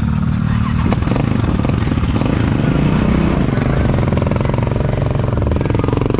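Quad bike (ATV) engine running close by, growing louder and busier about a second in, with its pitch dipping slightly near the end.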